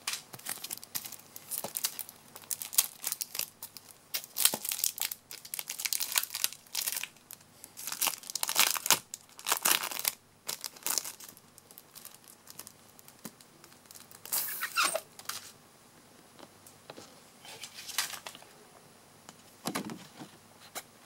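Thin clear plastic film crinkling and rustling in irregular bursts as it is handled and pulled off a flexible plastic sheet magnifier. The rustling is dense for about the first half, then comes in a few separate bursts.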